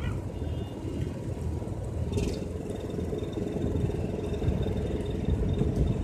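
Steady rumble of city traffic, with a brief high sound about two seconds in.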